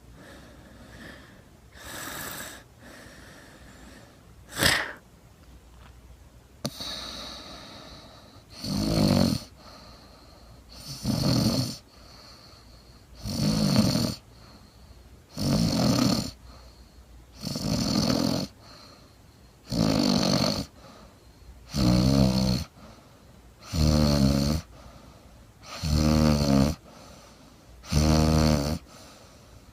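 A sleeping woman snoring. It starts with faint breaths and one sharp click, then about a third of the way in settles into one loud snore roughly every two seconds. In the second half each snore takes on a low buzz.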